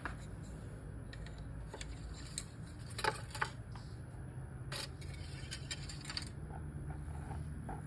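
A few light clicks and scrapes from the engine oil dipstick and rag being handled in the engine bay, mostly between about three and six seconds in, over a steady low hum.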